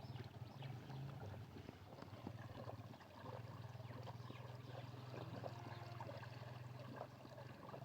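Water trickling and splashing over a steady low hum, with many small clicks and splashes.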